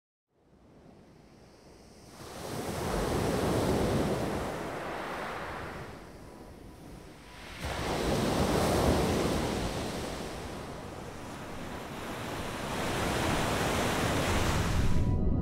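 Sea waves surging and washing back in three slow swells, starting faintly about half a second in.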